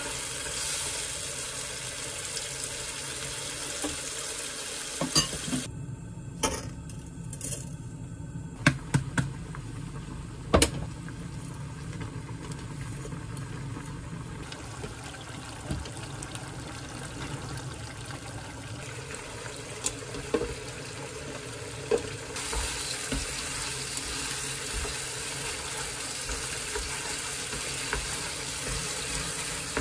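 Home cooking sounds: shrimp gambas al ajillo sizzling in a frying pan while wooden chopsticks stir it, with a few sharp knocks of the chopsticks against the pan. Spaghetti boiling in a pot of water, then the pasta tossed in the sizzling pan.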